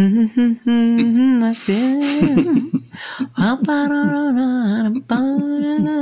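A lone voice humming a slow, wordless melody, holding long notes and wavering through small ornaments, with a breath drawn about two seconds in.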